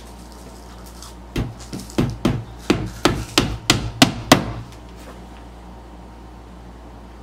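Small claw hammer tapping a small nail into the panel of a flat-pack cube organizer: about ten quick strikes, roughly three a second, getting louder as they go, then they stop.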